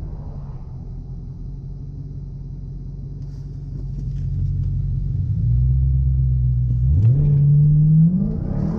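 Supercharged 6.2-litre Hemi V8 of a 2016 Dodge Challenger SRT Hellcat, heard from inside the cabin. It idles with a low rumble, then the revs come up about four seconds in and hold. They rise again in two quick steps near the end as the car is readied for a 0-60 mph launch.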